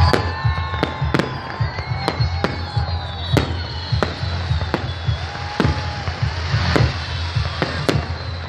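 Fireworks display: aerial shells bursting in a steady series of sharp bangs, one or two a second, over a continuous low rumble.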